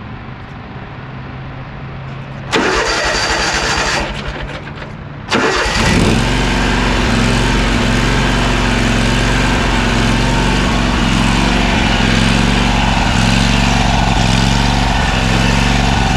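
Toro Z587L zero-turn mower engine being started: a louder cranking noise from about two and a half seconds in, then the engine catches a little after five seconds and runs steadily.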